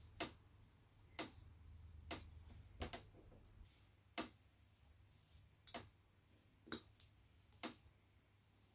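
Faint, sharp metal clicks, about one a second and unevenly spaced, from hand-winding a Helicoil thread insert into the aluminium body of a Suzuki GT750 carburettor with the insertion tool.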